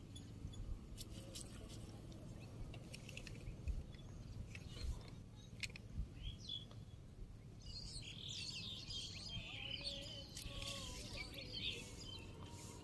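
Small birds chirping, becoming busier from about eight seconds in, over a low steady background rumble.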